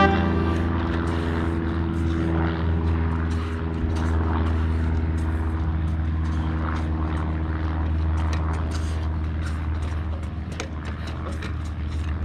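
A steady low engine drone with scattered light clicks and taps from a BMX bike being worked on concrete.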